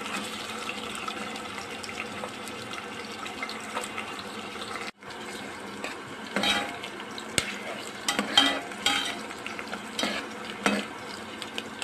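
Chopped onion sizzling in hot oil in a steel pot. In the second half a metal ladle stirs it, scraping and clinking irregularly against the pot.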